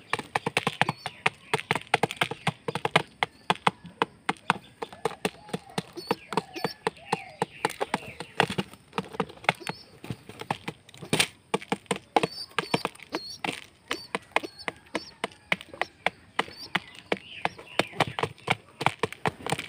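Pigeons pecking lentils out of a plastic jar: a fast, irregular run of hard beak taps on the plastic, several a second.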